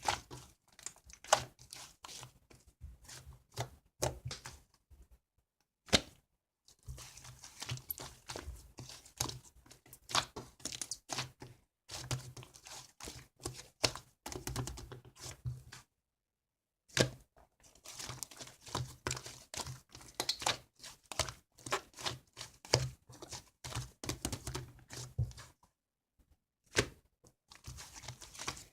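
Slime being squished and poked by hand: a dense run of sticky clicks, crackles and small pops, broken by three short silent pauses.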